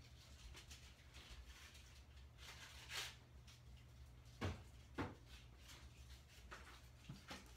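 Near silence: room hum with a few faint knocks, two sharp ones half a second apart about four and a half seconds in.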